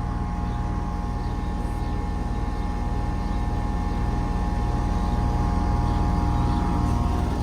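2010 Bryant Legacy 116BNA central air conditioner condensing unit running steadily with its Copeland scroll compressor: a very quiet, even hum with several steady tones and the whir of the condenser fan.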